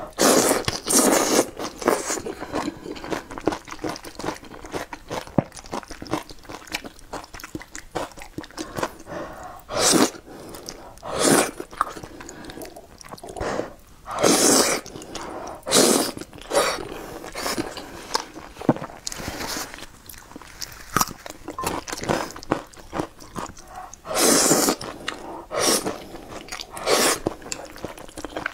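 Close-miked eating of wide, sauce-coated noodles: loud slurps every few seconds as strands are sucked in, with wet chewing between.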